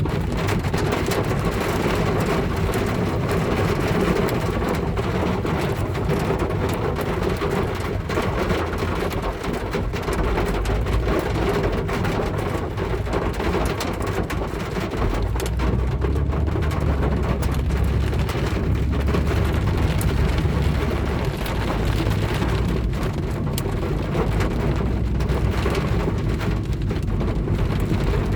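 Rain and hail drumming on a car's body, a dense, steady patter full of sharp ticks from individual hits. A low rumble comes and goes underneath.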